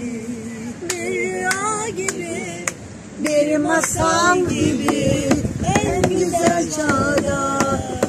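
A group of people singing a Turkish song together, women's and men's voices overlapping, louder from about three seconds in, with a few sharp clicks along with it.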